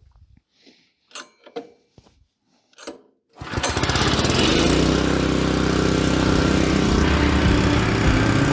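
A few faint knocks, then about three and a half seconds in an engine starts up abruptly and runs loud and steady.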